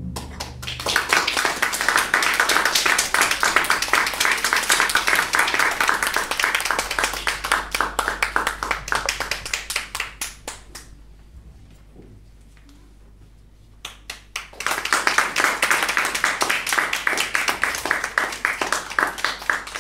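A small audience clapping. The first round fades out about eleven seconds in, and a second round starts about three seconds later.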